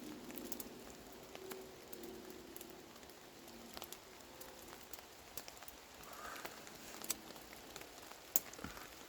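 Light rain falling, a faint steady hiss with scattered sharp ticks of single drops, one sharper tick near the end.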